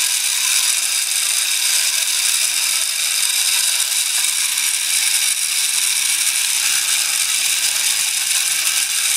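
Magnatron toy robot's small electric motor and gear train running steadily as it walks across the floor, a continuous mechanical whir with a faint low hum underneath.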